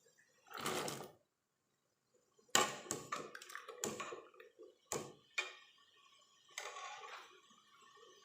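Irregular sharp clicks and knocks, about one a second, from long beans being cut up for cooking.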